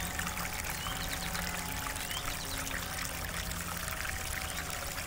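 A steady stream of water pouring from a wall spout into a stone fountain basin.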